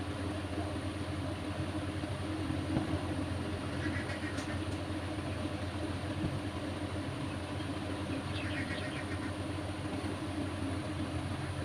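Steady low mechanical hum over a background of noise, with faint short high-pitched twitters about four seconds in and again near the end.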